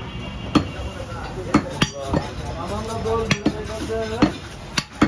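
A heavy butcher's knife chopping beef on a wooden chopping block: about seven sharp, irregular strikes, roughly one a second.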